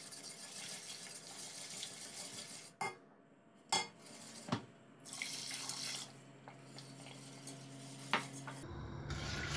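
A wire whisk stirs cold water into a roux of fried flour, tomato paste and red lentils in a stainless steel pot, with liquid sloshing. A few sharp clinks come from the whisk striking the side of the pot.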